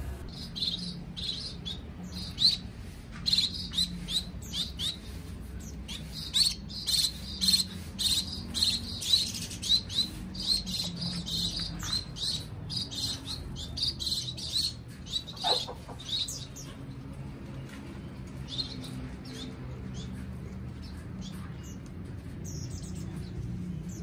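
Small aviary finches chirping: many short, high calls in quick succession, thinning out after about sixteen seconds.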